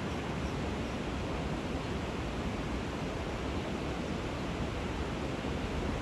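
Steady rushing of river water pouring through a weir, an even noise with no single knocks or changes.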